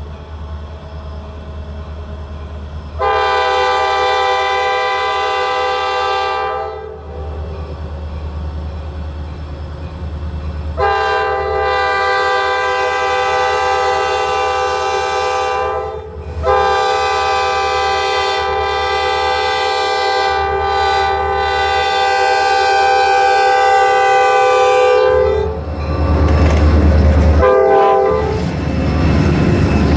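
Horn of an EMD SD40-2 diesel locomotive blowing three long blasts, the last about nine seconds long, then a short one near the end. Under it runs a low rumble that grows louder in the last few seconds as the train draws near.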